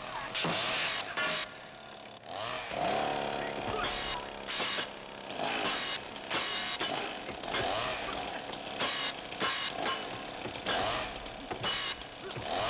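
Chainsaws revving and bogging in a film fight soundtrack, the engine pitch rising and falling in repeated surges, with a clear rising rev about two and a half seconds in.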